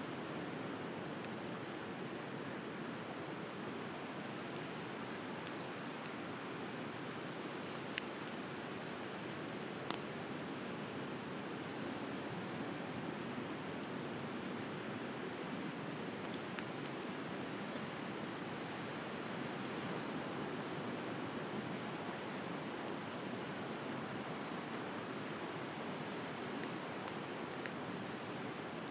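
Steady wash of sea waves, with scattered faint crackles from a wood bonfire and two sharper pops about eight and ten seconds in.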